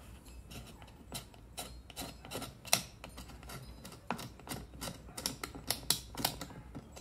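Irregular clicks, taps and light scrapes of a hard plastic primer-bulb back plate being handled and rubbed against the bench, while it is checked for a flat surface after its rib was ground off. One tap about two and a half seconds in is the loudest, and the clicks come more often near the end.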